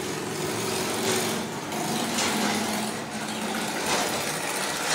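Battered potato fries sizzling in hot oil in a karahi, stirred with a metal skimmer. A low steady engine-like hum runs underneath.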